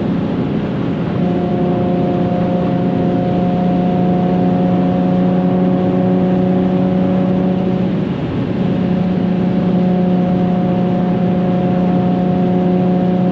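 Nissan 370Z's 3.7-litre V6 through a Tomei titanium single-exit cat-back exhaust, droning at a steady, unchanging pitch under constant throttle at high cruising speed, with road and wind noise underneath, heard from inside the cabin. The note dips briefly about eight seconds in, then returns to the same drone.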